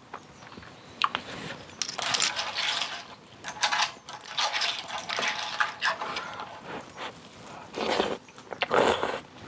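Close-up eating sounds of clam kalguksu noodle soup: a run of loud slurps, each about a second long, with chewing between them and a sharp utensil click about a second in.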